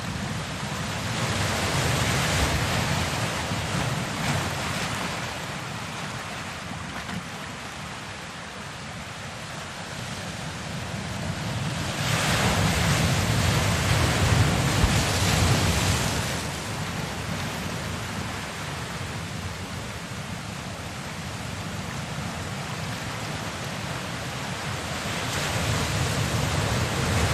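Ocean surf: a rushing wash of waves over a low rumble, swelling and ebbing slowly three times.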